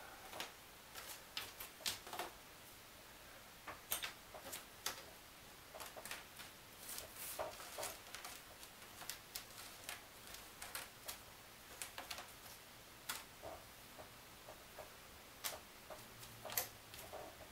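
Small, thin laser-cut wooden pieces clicking and tapping faintly and irregularly as they are picked up and set down together on a paper-covered table.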